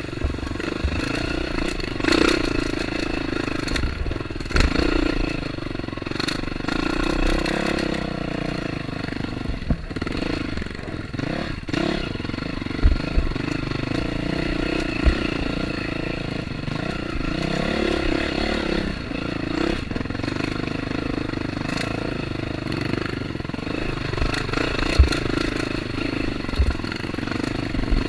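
Off-road trail motorcycle engine running under way, its revs rising and falling over and over, with scattered sharp knocks and clatter.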